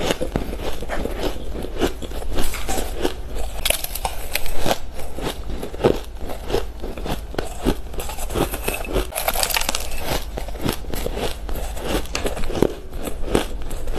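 Shaved ice being eaten by the spoonful, crunching between the teeth: a dense, irregular run of crisp crackles and crunches, over a steady low hum.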